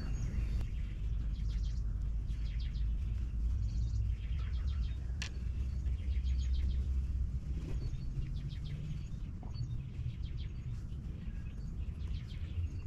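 Birds chirping in short, fast trills that recur every second or two, over a low steady rumble. There is a single sharp click about five seconds in.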